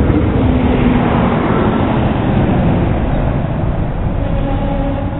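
A DB class 642 Desiro diesel railcar pulling away along the platform: its diesel engines and drive run with a steady mechanical rumble and a few faint held tones, growing gradually quieter as it draws off.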